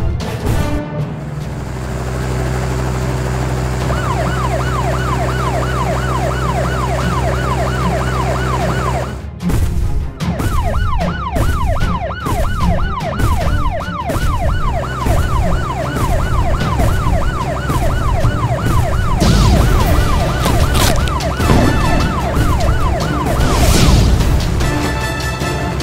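Cartoon police siren yelping, its pitch rising and falling about three times a second, over background music. It breaks off for about a second near the middle, then starts again. A few noisy hits come near the end.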